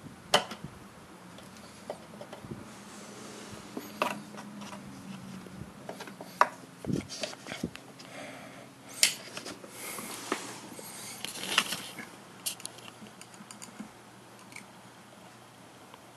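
Gearing and sliding parts of a small motorized duck-target mechanism clicking and scraping irregularly as it moves, with a low motor hum that stops about six seconds in. The parts are not yet lubricated with Teflon, and the top does not slide smoothly.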